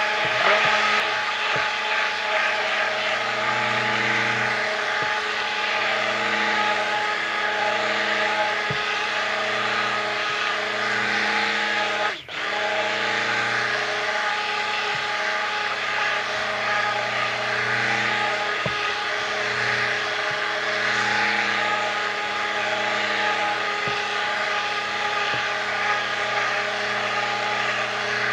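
Proctor Silex stick blender running in one long continuous burst, its motor whining steadily as it blends lard, lye and water soap batter that is still liquid, not yet at trace. The motor cuts out and restarts about twelve seconds in.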